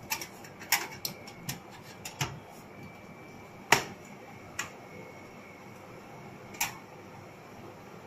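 Sharp clicks and light metallic knocks from hands handling the sheet-metal drive cage of an open PC tower case: a quick run of taps in the first couple of seconds, the loudest knock near four seconds in, and a last one near seven seconds.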